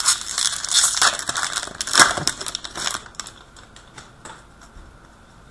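Hockey trading cards and their pack wrapper being handled, crackling and clicking. Dense for about three seconds, then a few scattered ticks.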